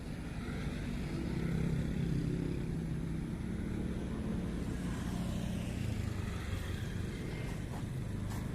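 A motor engine running, growing louder over the first couple of seconds and then holding steady.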